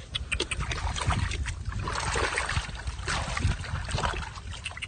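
Bare hands scooping and squelching through mud and shallow muddy water, with many short wet slaps and splashes.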